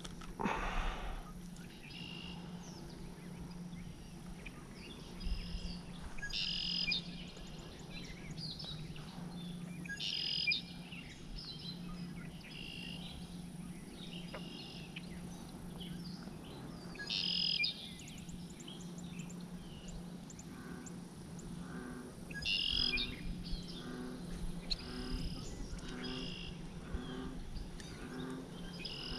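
Birds singing: short bright phrases repeat every few seconds over a steady low hum. From about two-thirds of the way through, a softer call repeats about once a second.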